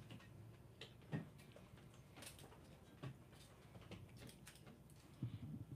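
Near silence: studio room tone with a few faint scattered clicks and small knocks.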